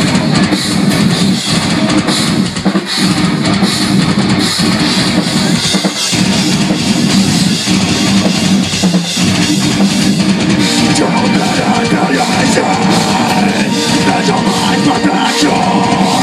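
Heavy metal band playing live: electric guitars, drum kit and keyboards in a dense, continuous instrumental passage.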